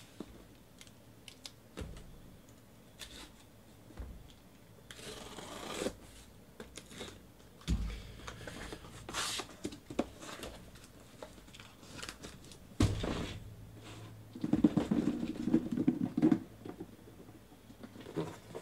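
A cardboard shipping case being cut open with a folding knife and unpacked: scraping and rustling of blade, tape and cardboard flaps, then card boxes being lifted out and set down with a few dull thumps.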